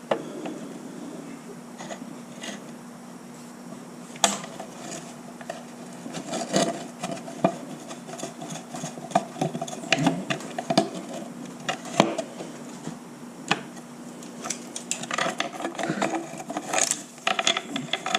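A wrench working on the metal parts of an outboard motor: irregular metal clicks, clinks and scrapes as a fitting is loosened, with a few sharper knocks and a quicker run of clicking near the end.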